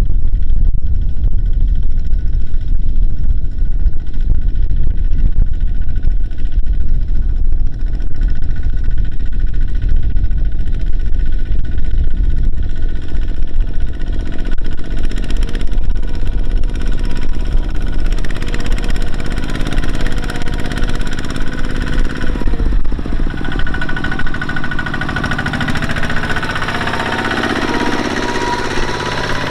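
Heavy diesel engine of earthmoving machinery running hard, a loud rattling low rumble. From about two-thirds of the way in, a higher whine joins it and climbs slightly toward the end.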